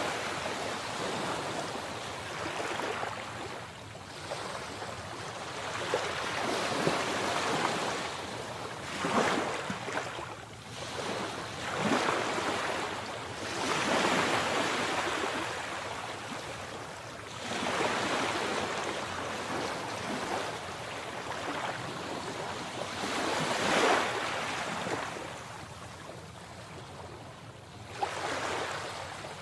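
Sea waves breaking and washing on a shore, a steady wash of surf that swells into a new break every few seconds.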